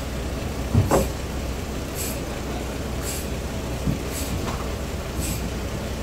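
Heavy sawn suar wood slabs being shifted by hand, with a loud knock about a second in and a smaller one near four seconds, over a steady low hum.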